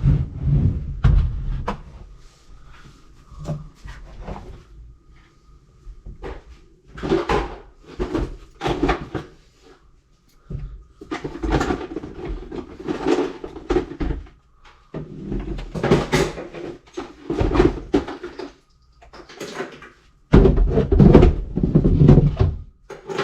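Irregular knocking and clattering of doors and cabinets being opened, shut and handled, in a series of bursts lasting a second or two each.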